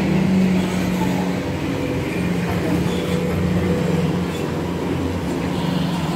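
A steady, low engine drone with an even hum, with no change in pitch.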